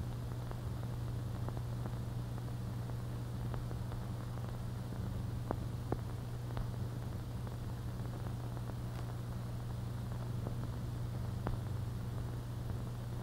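Steady low hum and hiss of an old optical film soundtrack, with a few faint crackling clicks scattered through it.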